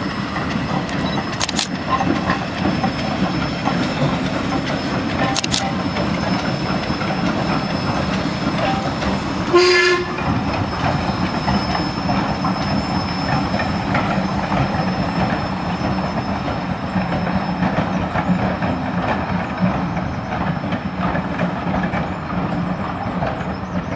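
Ivatt Class 2 steam tank locomotive and its coaches running past at a steady pace. About ten seconds in, the locomotive gives one short whistle blast lasting about half a second.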